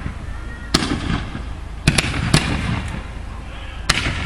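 Fireworks display with aerial shells bursting: four sharp bangs at uneven intervals, each trailing off in a low rumble.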